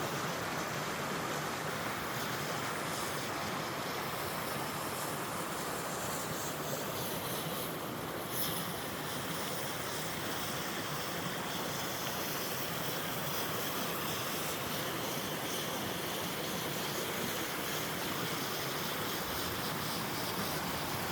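Two-tier waterfall: water pouring and splashing in a steady, unbroken rush.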